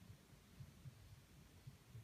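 Faint, low pulsing of small Stirling hot-air engines running, about three soft beats a second over faint hiss.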